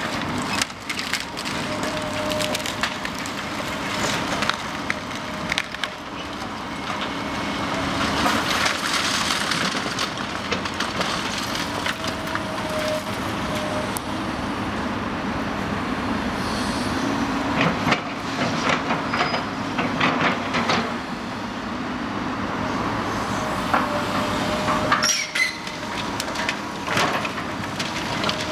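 Tracked excavator working a pile of demolition rubble: timber and brick crunching and splintering under its bucket, with many sharp knocks and cracks over the steady running of its engine.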